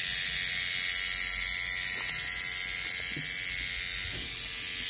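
Pen-style tattoo machine buzzing steadily as its needles work ink into the skin.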